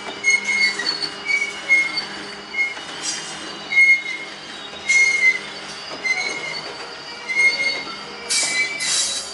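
Covered hopper cars of a freight train rolling slowly past close by, their wheels giving short high squeals over and over against the rails, over steady rolling noise. A louder rush of noise comes just before the end.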